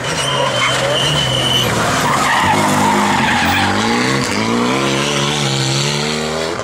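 Renault Mégane RS rally car's turbocharged four-cylinder engine pulling hard as it slides round a hairpin, with a high tyre squeal for about the first second and a half. The revs then climb, drop and climb again through gear changes as it accelerates away.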